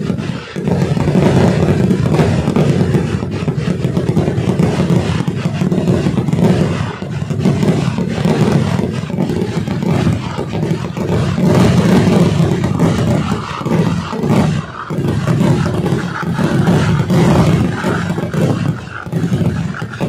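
Kerala temple-festival fireworks (vedikettu) in a dense barrage, the explosions following so closely that they merge into one loud, continuous rumble that eases briefly a few times.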